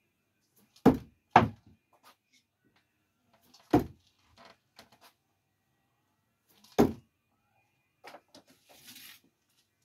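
Thrown screwdrivers striking a wooden target board: four loud, sharp knocks, two close together about a second in, one near four seconds and one near seven seconds. Fainter clicks and a short rustle follow near the end.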